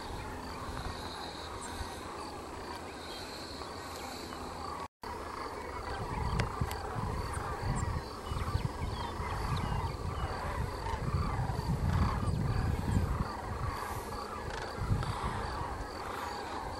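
A large flock of birds calling all at once: a dense chorus of many overlapping short calls. From about five seconds in, a low wind rumble on the microphone joins it.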